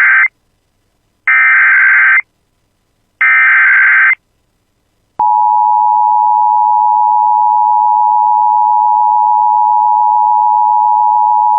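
Emergency Alert System SAME header: the end of one digital data burst and two more bursts of about a second each, evenly spaced. About five seconds in, a loud, steady electronic attention tone near 1 kHz begins and holds, signalling that a warning message follows.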